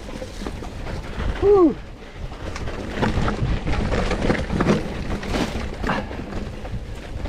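Mountain bike riding a rough dirt singletrack: tyres on earth and stones, with irregular rattles and knocks from the bike frame and chain over the bumps. About one and a half seconds in there is a brief pitched tone that rises and falls.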